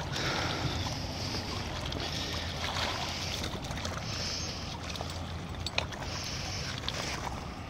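Steady outdoor rumble and hiss of wind and river water at a rocky shoreline, with a few sharp clicks, the loudest about six seconds in.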